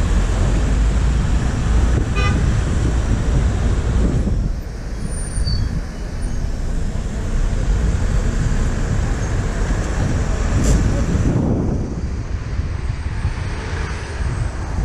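Steady engine and road rumble of a car driving slowly through city traffic, with a short car horn toot about two seconds in and a single sharp click near eleven seconds.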